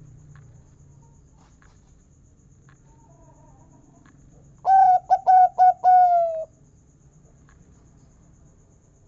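Zebra dove (perkutut) singing one cooing phrase about halfway through: four quick notes, then a longer final note that falls slightly in pitch.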